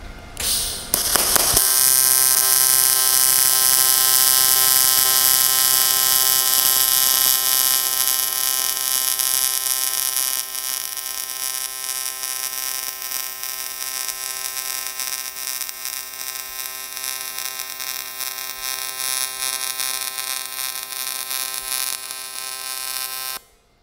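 AC TIG welding arc on a thin 16-gauge aluminium outside-corner joint, run at a fixed amperage from a trigger switch (about 53 amps). A steady buzzing hum with a hiss over it catches about a second and a half in, eases slightly partway through, and cuts off sharply near the end when the trigger is released.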